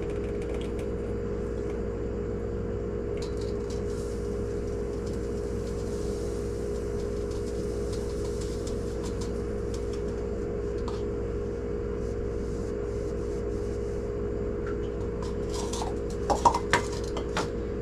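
A steady low hum with a few faint ticks; about sixteen seconds in, a short run of light clinks from kitchen utensils against a glass canning jar.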